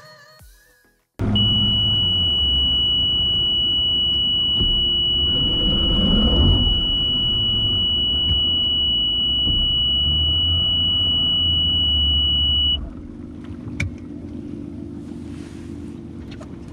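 Bass boat running across the lake: a loud, steady low rumble of the outboard and hull, with a steady high-pitched tone held over it. Both drop off suddenly about 13 seconds in, leaving a quieter rumble and rushing water and wind.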